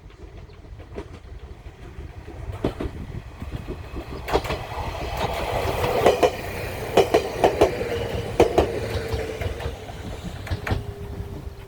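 Bessho Line 1000 series electric train passing by, growing louder and then fading. Its wheels clack over the rail joints in quick pairs, with a steady whine that drops slightly in pitch as it goes by.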